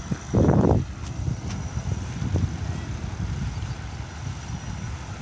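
Wind buffeting a phone's microphone: an uneven low rumble, with one louder gust about half a second in.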